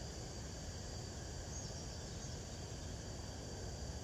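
Steady high-pitched drone of insects in a garden, over a low rumble.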